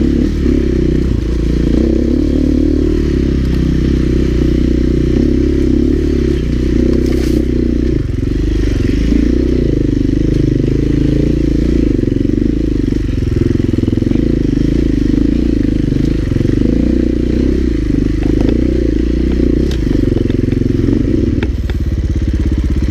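Husqvarna four-stroke single-cylinder dirt bike engine running steadily under throttle, with an occasional sharp knock.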